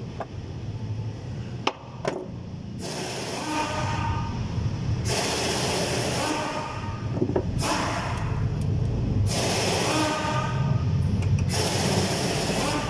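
Hand work on a vehicle wiring harness: two light clicks, then about five rasping strokes a second or so long each, over a low steady hum.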